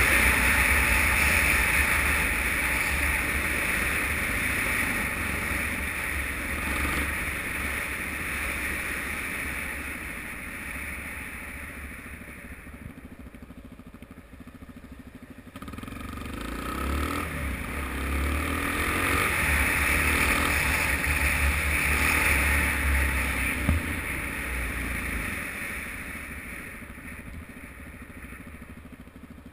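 Suzuki DR-Z single-cylinder motorcycle engine and wind rush, heard from a helmet-mounted camera while riding in traffic. The sound fades as the bike slows to a near-idle around the middle, rises again as it pulls away and speeds up, and drops off near the end as it slows behind cars.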